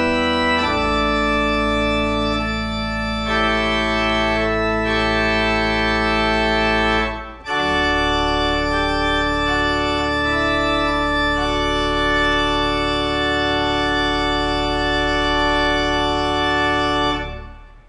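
Pipe organ playing slow, held chords that change every few seconds, with a short break about seven seconds in. The final chord is released near the end.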